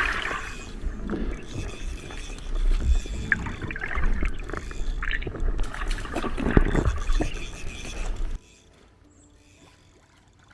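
Water sloshing and rumbling close to the microphone, with a few knocks, cutting off suddenly about eight seconds in.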